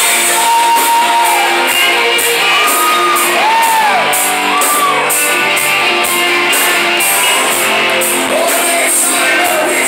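Live rock band playing through a club PA, heard from the audience: electric guitars hold long notes that bend up and down, over drums with regular cymbal hits.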